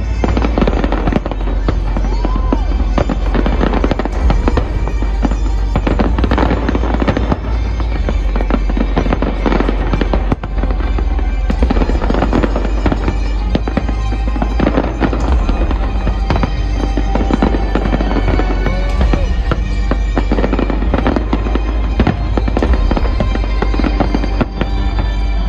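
Fireworks going off in a dense, continuous barrage of bangs and crackles, with music playing along.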